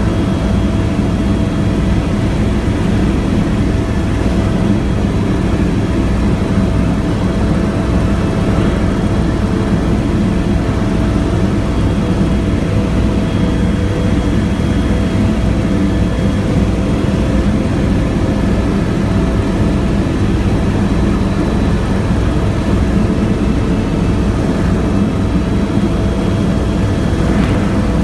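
Helicopter in flight heard from inside the cabin: a steady low rotor beat under the turbine's constant whine.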